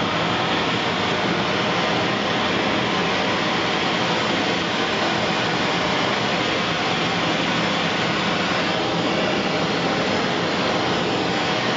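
Propane torch flame burning with a loud, steady hiss as it heats a copper model locomotive boiler for silver soldering the staybolts.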